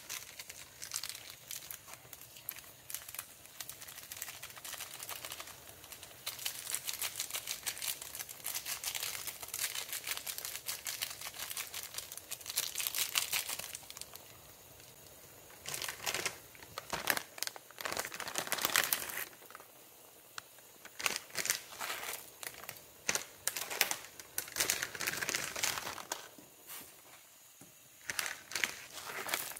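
Foil seasoning sachets from instant ramen crinkling as they are handled, torn and shaken out over the pot, in several spells with quieter gaps between.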